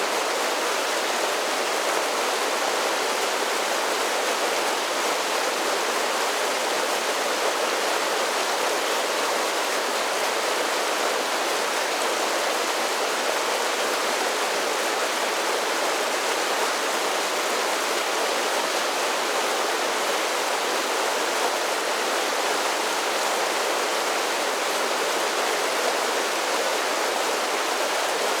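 Mountain creek running over a series of small waterfalls: a steady, even rush of falling and splashing water.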